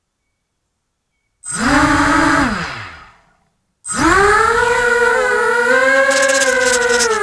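Brushless motors of a 250mm racing quadcopter spin up briefly, then wind down to a stop. A couple of seconds later they spin up again and keep running as the drone lifts off, the whine wavering in pitch as the throttle changes.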